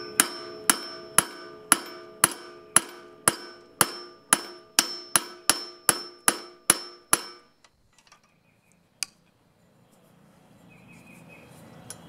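Hammer striking the flywheel nut threaded flush on the crankshaft of a Honda mower engine, about two blows a second, each with a metallic ring, while a screwdriver pries under the flywheel to break it loose without a puller; the hammering stops about seven seconds in.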